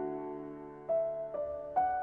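Slow, soft piano music: a held chord dies away, then single notes are struck about a second in and twice more near the end.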